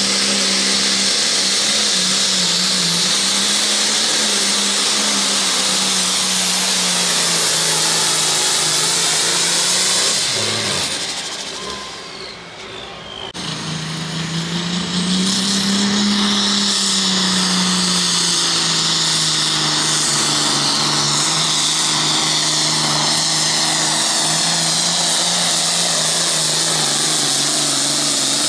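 Modified diesel pulling tractors running flat out while pulling a weight sled, each a steady, high-revving engine note. About halfway through the sound dips away briefly, then comes back with another tractor whose pitch rises and then levels off.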